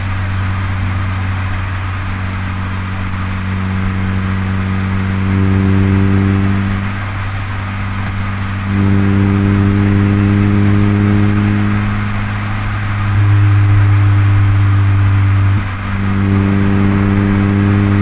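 Nissan Primera P10 1.6's four-cylinder engine pulling at steady revs while driving, its hum holding one pitch. It gets louder in steps as more throttle is given, with a brief dip about three-quarters of the way through.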